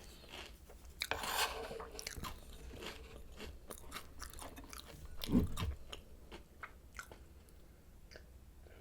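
Close-up chewing and crunching of Oreo O's cereal: crisp crackling bites, densest about a second in, with a louder, deeper mouthful sound a little past halfway.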